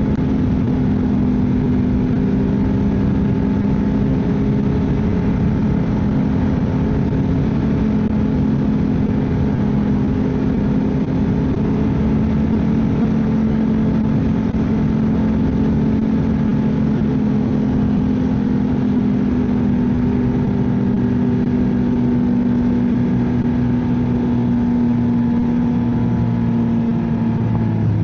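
Ski-Doo snowmobile engine running steadily at cruising speed along a trail. Its pitch sags slightly and then drops near the end as the sled slows.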